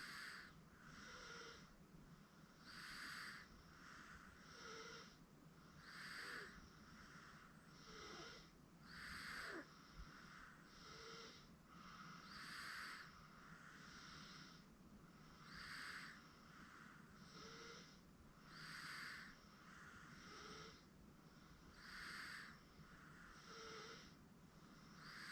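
Sleeping baby breathing softly with a light snore, a stronger airy breath about every three seconds and a softer one between each.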